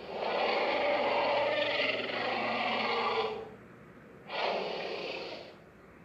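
Dinosaur roar sound effect played twice: a long roar of about three and a half seconds, then a shorter one starting about four seconds in.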